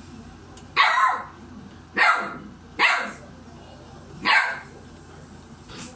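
A dog barking: four loud barks a second or so apart, then a fainter one near the end.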